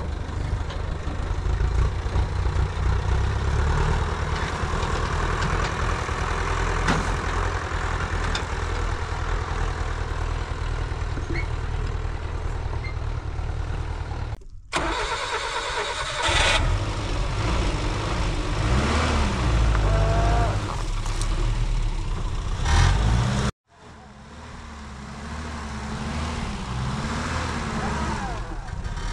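A motor vehicle's engine running, with the sound cutting out abruptly about halfway through and again near the end, then building back up.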